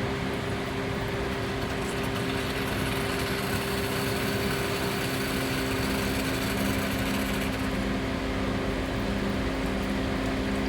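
Sage espresso machine's vibratory water pump running steadily while pulling a double shot: a continuous buzzing hum. A lower hum joins about two-thirds of the way through.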